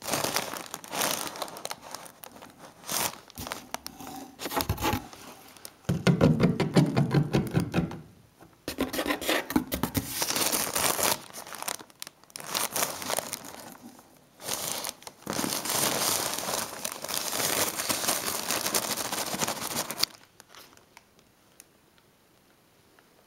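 Plastic air-cushion packing bags crinkling and rustling in irregular bursts as a kitten and a hand move among them in a cardboard box; the rustling stops near the end.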